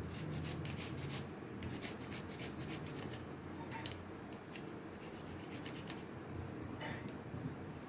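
Fresh ginger grated in quick rasping strokes, in short runs with brief pauses between them, over a low steady hum.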